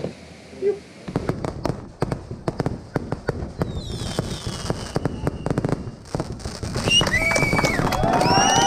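A rapid, irregular string of firecracker pops and bangs, starting about a second in. Near the end, shouting voices rise over it.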